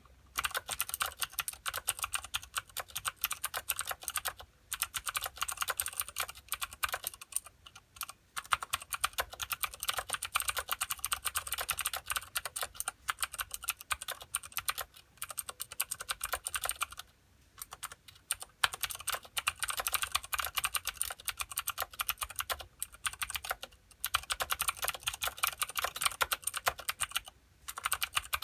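Steady fast typing on a Filco Minila mechanical keyboard with clicky Cherry MX Blue switches and thin ABS keycaps, a rapid run of sharp key clicks with a few brief pauses.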